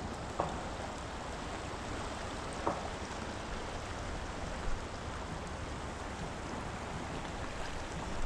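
Shallow river running over rocks: a steady rushing of water, with a few brief knocks.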